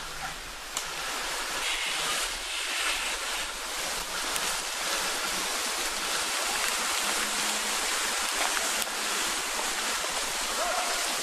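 Steady, even outdoor hiss with no distinct event, with faint distant voices near the end.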